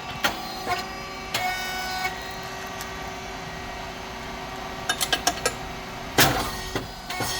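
Rice cake popping machine running: a steady hum with scattered clicks and knocks, and one loud short burst about six seconds in.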